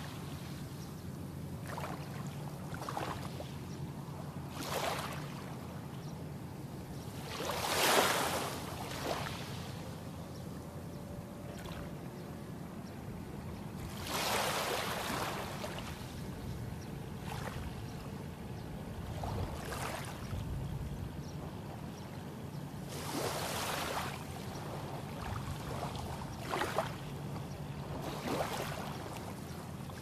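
Small waves from a calm sea lapping on a sandy beach, each wash rising and falling back every few seconds, the loudest about eight seconds in. A steady low hum runs underneath.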